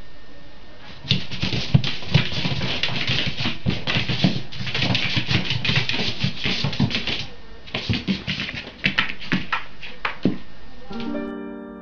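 A pet scrabbling and scampering across a hard floor, its claws and paws clicking and scraping rapidly and irregularly as it chases a laser dot. Near the end it gives way to soft piano music.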